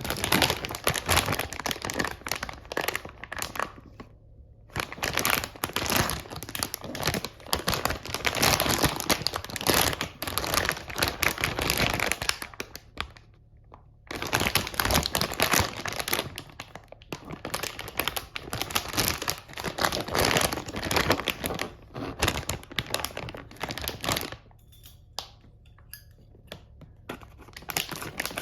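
Plastic packaging of a toy railway crossing crinkling and tearing as it is opened. The crackling comes in long stretches with two short pauses, then gives way to a few light clicks and taps near the end.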